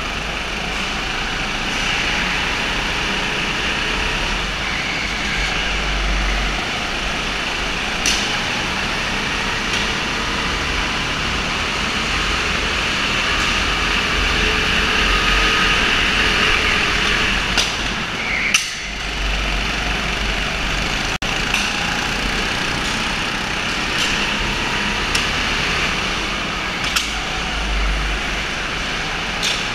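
Go-kart engines running steadily during an indoor kart race. A few sharp knocks break through, the loudest a little past halfway, where the engine sound briefly drops.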